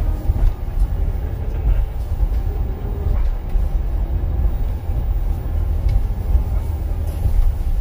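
Wolmi Sea Train tourist monorail car running along its elevated guideway, heard from inside the cabin as a steady low rumble.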